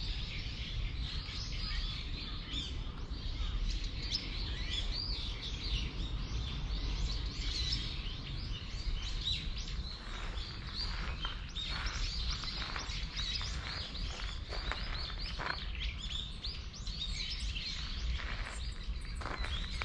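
Small birds chirping and calling again and again, more busily in the second half, over a steady low rumble.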